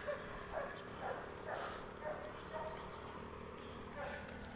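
Rural outdoor sounds: an animal calling in short repeated calls, about two a second, over a steady high drone and quick trains of chirps from insects.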